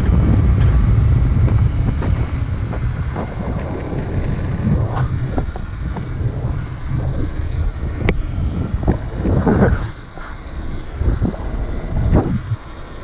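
125 cc two-stroke dirt bike engine running and being revved, with several short rising rev sweeps in the second half, and wind buffeting the microphone.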